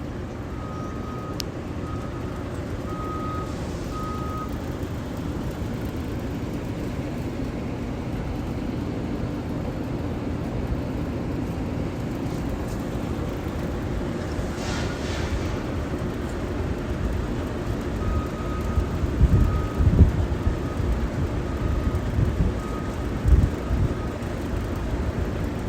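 A vehicle engine running steadily, with short high beeps of a reversing alarm sounding near the start and again toward the end. There are several loud low thumps in the second half.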